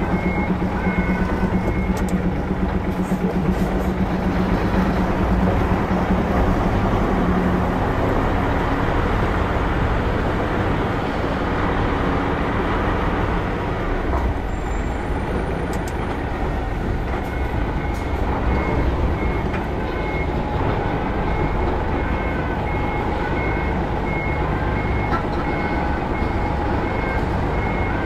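Hino Profia semi-trailer truck's diesel engine running steadily as it backs up, with its reversing alarm beeping in an even repeated pattern at the very start and again from a little past halfway on.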